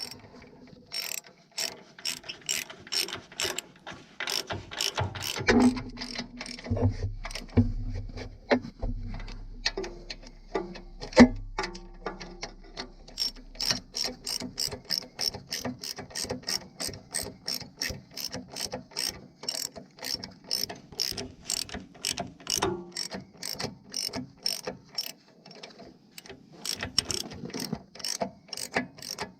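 Hand ratchet wrench clicking in quick, even strokes, about three clicks a second, as bolts are run in. A few metal knocks come in the first half, the loudest about eleven seconds in.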